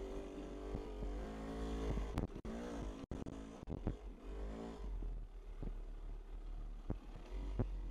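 Yamaha YZ250 two-stroke single-cylinder dirt bike engine revving up and down under throttle as the bike picks its way over rock, with a brief cut about three seconds in. A couple of sharp knocks come near the end.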